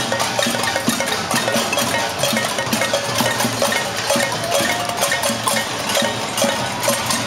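Many pots and pans being struck by a crowd in a casseroles protest: a dense, unbroken clatter of metal strikes, each ringing briefly.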